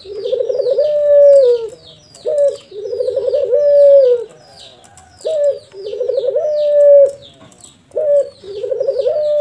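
Barbary dove (domestic ringneck dove) giving its bow-coo about four times, each coo a short note, a rolling trill, then a long held note that drops at the end. Faint high chirping of other small birds runs behind it.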